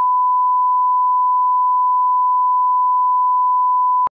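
Steady 1 kHz sine-wave reference tone, the bars-and-tone leader at the head of a video master: one loud, unwavering pitch that cuts off sharply about four seconds in.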